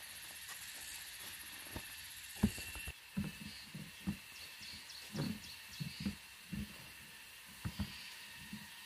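A hoe blade chops once into soil about two and a half seconds in, over a steady high-pitched insect buzz. After that comes an irregular run of short, dull low thumps.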